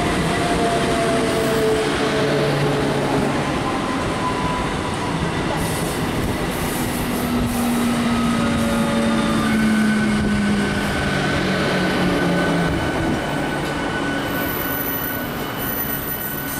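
An ICF Medha three-phase electric multiple unit running past, a loud, steady rush of wheels on rails with faint whining tones drifting over it.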